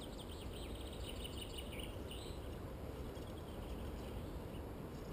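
Small birds chirping and twittering for about the first two seconds, over a steady low background rumble.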